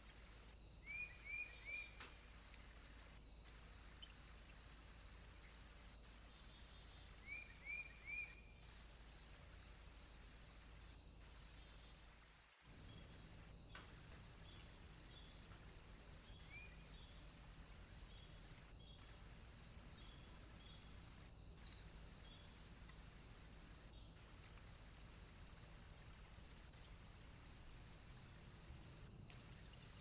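Faint woodland ambience dominated by insects: a steady high buzz with an evenly repeating pulsed chirp, typical of crickets. Twice near the start there is a quick run of three short chirps, and once more later a single chirp. Partway through, the sound drops out for an instant.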